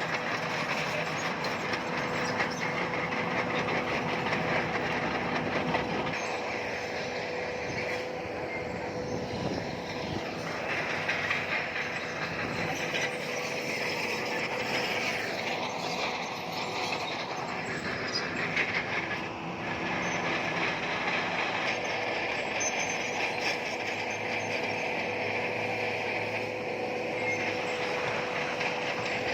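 Crawler bulldozer working, its diesel engine running steadily while its steel tracks clatter and squeal.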